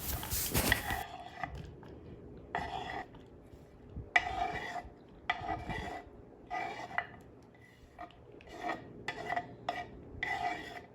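Diced onion, tomato and habanero peppers being scraped with a knife across a cutting board into a bowl: a string of about ten short scraping strokes at uneven intervals, louder in the first second.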